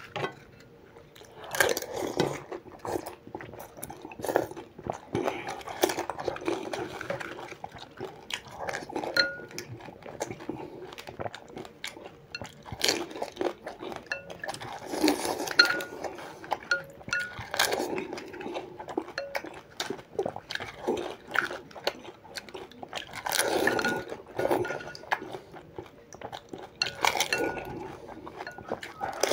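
Fast eating of pani puri: crisp hollow puris are dunked into a glass bowl of spiced water and eaten one after another. Crunching and chewing come in irregular bursts, with wet sounds from the water and light clinks against the glass bowl.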